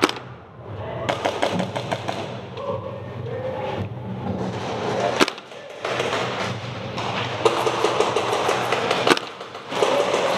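Airsoft guns firing during a close-quarters game: scattered single shots and knocks, one sharp crack about halfway, and a quick string of shots a couple of seconds before the end.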